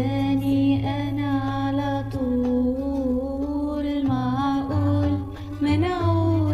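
A solo singing voice holding long, wavering notes over a backing track with a steady bass line.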